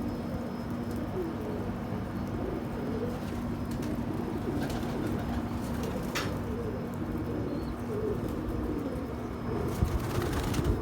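Domestic pigeons cooing, many short low warbling coos overlapping, over a steady low hum.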